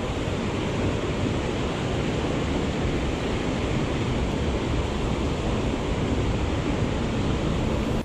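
Mountain creek water rushing steadily over rocks.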